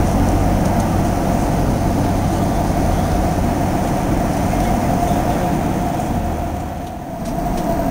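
Steady in-flight cabin noise of an airliner: an even roar with a low rumble and a steady mid-pitched hum, dipping briefly near the end.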